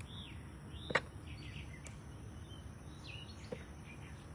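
Birds chirping in short, scattered calls over a low background rumble, with a sharp knock about a second in and a couple of fainter clicks later.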